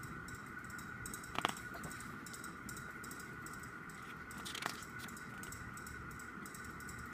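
Two brief handling sounds, a sharp click-like rustle about a second and a half in and a softer one about four and a half seconds in, as an album and its photo book are handled. Under them runs a steady high hum with faint, regular ticking.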